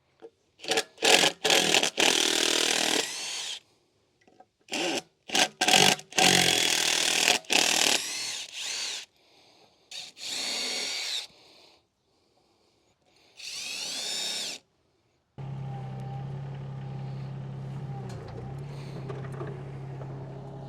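Cordless drill-driver running in short bursts, its motor whining up in pitch on several pulls, as it backs screws out of a wooden bench. Near the end this gives way to a steady low drone.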